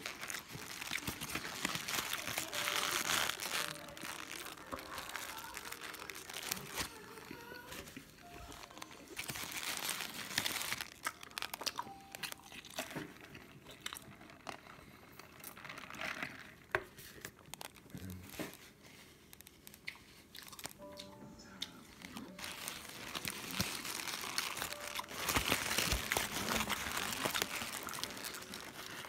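Paper burger wrapper crinkling in repeated bursts as it is handled around a McDonald's McSpicy Shanghai burger, loudest near the end.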